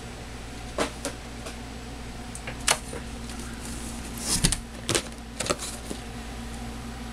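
Cardboard model-kit boxes being handled inside a corrugated shipping carton: a handful of scattered knocks and scrapes, the loudest about four and a half seconds in, over a steady low hum.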